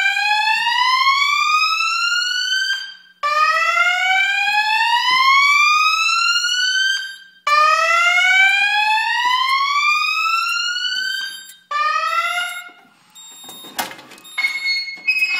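Evacuation alarm tone from the speaker of an Edwards EST voice evacuation system, switched on through its amplifier. It is a slow whoop: a rising sweep about four seconds long, repeated three times, with a fourth sweep cut off short about 13 seconds in.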